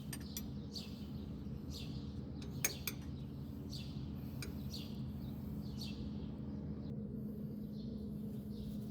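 Short bird chirps repeating every half second to a second over a steady low hum, with one sharp click about two and a half seconds in.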